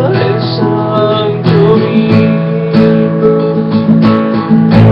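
Acoustic guitar strumming chords in the closing bars of a song, with a hard strum near the end that rings on.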